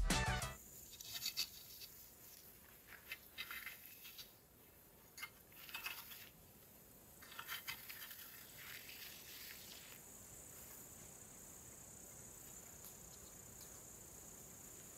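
Faint evening outdoor ambience of insects trilling: a steady high-pitched drone, with scattered short chirps through the first nine seconds or so.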